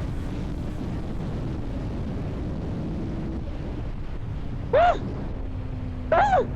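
Deep, steady wind rumble on the microphone of a Kawasaki ZX-6R ridden at speed, with the engine as a faint even hum underneath. About five seconds in, and again about a second later, the rider lets out a short excited shout.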